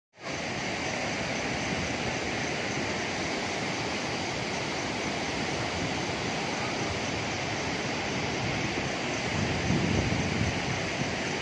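Steady rush of a fast-flowing river, with a brief low rumble of wind on the microphone near the end.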